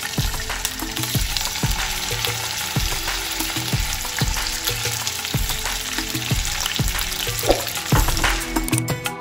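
Katla fish steaks sizzling steadily in hot oil as the raw pieces are lowered in and start to fry.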